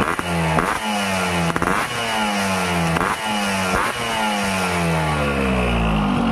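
Hot two-stroke motorcycle engine revved in a string of quick throttle blips, each rev falling away again. It settles back toward idle near the end.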